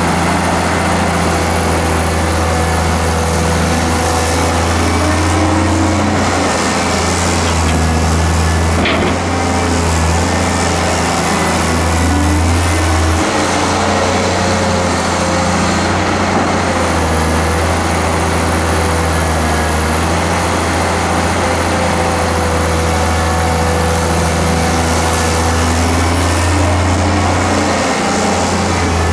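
Diesel engine of a Hyundai 290LC-3 crawler excavator running under working load while it digs sand and swings, its low drone rising and falling as the hydraulics take load. A brief knock sounds about nine seconds in.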